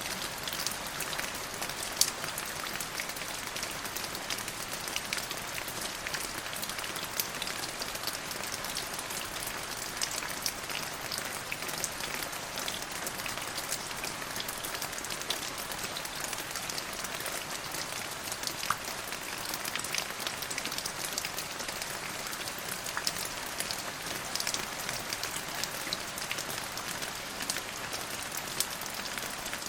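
Steady rain: an even hiss dense with sharp, scattered drop hits.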